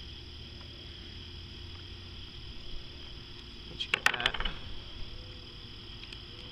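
Steady high chirring of insects, with a short run of sharp metallic clicks and rattles about four seconds in from a Savage Model 64 .22 rifle being handled while it is reassembled.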